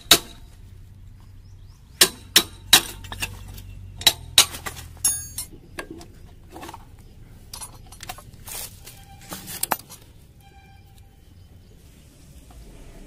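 Tools and metal parts knocking and clinking as they are handled, in a string of irregular sharp strikes. One strike about five seconds in rings on briefly, and a quick cluster comes near the end.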